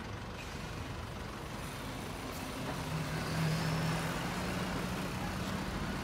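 Truck-mounted aerial work platform running with its boom moving under power: a steady mechanical running noise, joined about three seconds in by a low steady hum.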